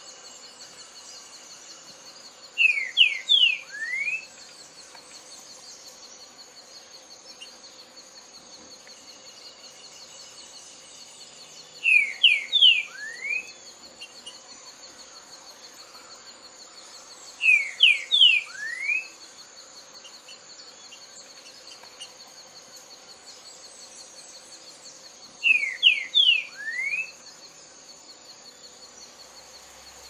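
Green-winged saltator (trinca-ferro) singing: four short loud phrases several seconds apart, each three quick clear whistled notes ending in a lower rising note, over a steady high buzz.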